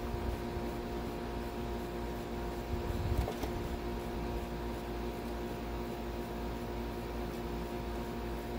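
Steady machine hum made of several fixed tones over a low rumble, with a faint knock about three seconds in.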